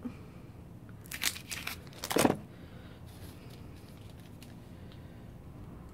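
Crinkly candy-bar wrapper rustling as it is handled: a few crinkles between about one and two seconds in, the last one the loudest.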